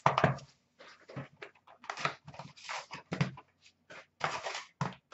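Wrapped hockey card packs from a 16-17 Upper Deck Ice box being handled: the packs and the cardboard box rustle, crinkle and scrape in a series of short, irregular bursts as the packs are pulled out and stacked.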